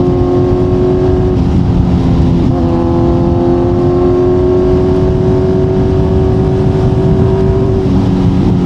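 Kawasaki Z900's inline-four engine through an Akrapovic exhaust, cruising at a nearly steady engine speed, with small shifts in pitch about a second and a half in, again a second later, and near the end. A steady low rush of wind and road noise runs underneath.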